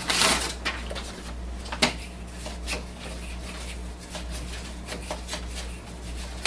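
Sheets of paper rustling as originals are set into the document feeder tray of a Brother MFC-J5920DW inkjet all-in-one. A sharp click follows about two seconds in, then a few light ticks, over a low steady hum.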